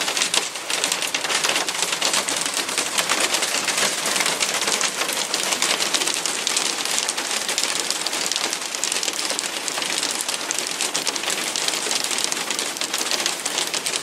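Steady rain falling hard: a dense, even hiss made of countless small drop impacts, with no let-up.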